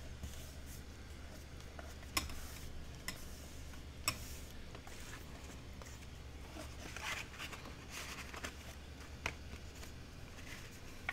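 Paper cardstock being handled on a craft mat: a few sharp taps and a soft rustle of paper as a card is slid into a folded paper envelope, over a faint low hum.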